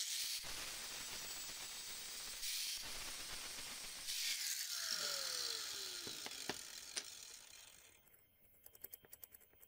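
Handheld angle grinder starting up and grinding the face of a small round steel plate, with a hissing metal-on-abrasive sound. About five seconds in the motor winds down with a falling whine. Near the end there are light metal clinks as the plate is handled.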